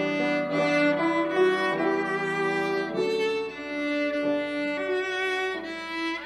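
Slow instrumental music played on bowed strings, held notes moving one to the next without a break.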